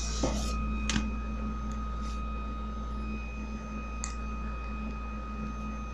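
A handheld calculator's keys tapped a few times, giving a few short, soft clicks over a steady low hum and a faint high-pitched whine.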